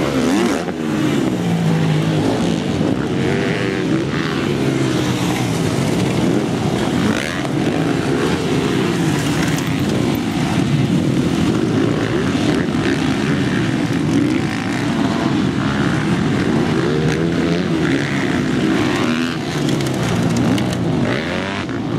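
Several motocross bikes' engines revving hard through gear changes, their pitches rising and falling over one another as they pass.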